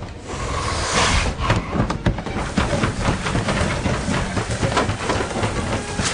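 Gunfire in a film soundtrack: a loud burst about a second in, then a quick run of sharp shots from about two and a half seconds on, over a low rumble.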